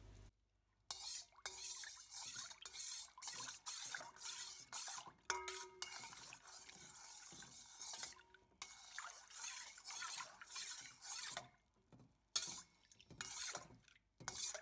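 A metal spoon stirs acrylic paint into water in a stainless steel bowl, mixing a dye bath. It scrapes and swishes in a series of short strokes, with a brief ringing clink against the bowl about five seconds in.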